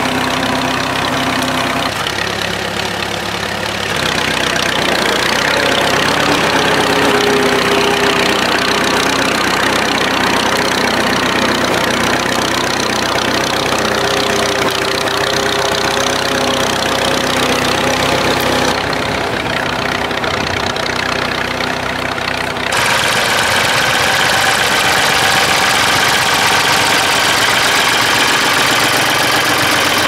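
Vintage Fordson Standard tractor's four-cylinder side-valve petrol-paraffin engine running steadily under load, pulling a trailed plough. The sound changes abruptly a few times, and for the last several seconds a different, later Ford tractor engine is running.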